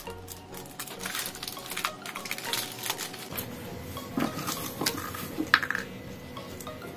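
Close handling sounds of scissors and paper: snipping, crinkling and many small clicks and taps as a paper lottery slip is cut from the sheet, picked from a plastic cup and unrolled.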